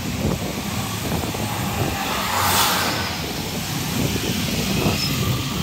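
City street traffic: a steady mix of vehicle engines and tyre noise, with one vehicle passing close about halfway through.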